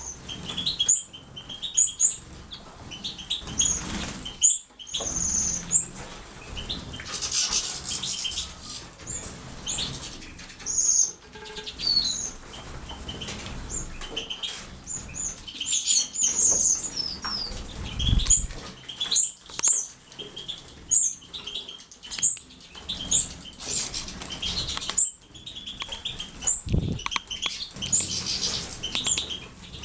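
Small pet birds bathing, fluttering their wings and splashing in the water, with frequent short high chirps.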